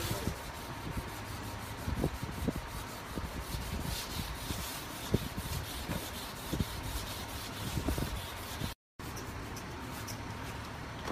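Hand sanding block rubbing back and forth over a grey primed patch on a car bumper, wet-sanded with a little sprayed lubricant. It is a steady rasping rub with irregular stroke accents, and cuts out briefly about nine seconds in.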